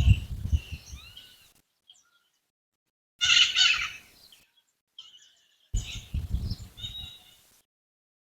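Wild birds chirping and singing in three short bursts of quick calls and little gliding notes, separated by dead silence. A low rumble runs under the first and last bursts.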